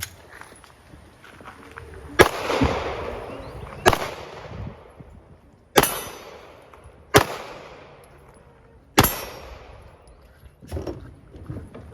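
Glock pistol fired five single shots at a slow, uneven pace, about one and a half to two seconds apart, each crack followed by a short echoing tail.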